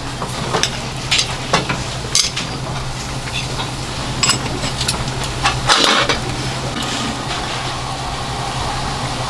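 Restaurant kitchen clatter: dishes and utensils clinking and knocking at irregular moments, with a louder clatter about six seconds in, over a steady low hum and background hiss.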